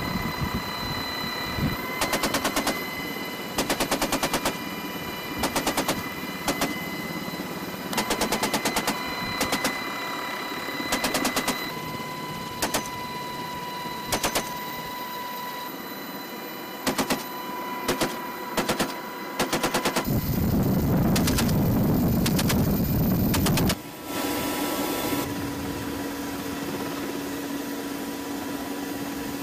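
GAU-18 .50-calibre machine gun fired from the door of an HH-60 Pave Hawk in about a dozen short bursts, each a quick string of shots, over the steady noise and whine of the helicopter cabin. The firing stops about two-thirds through, followed by a few seconds of loud steady rushing and then a lower steady hum.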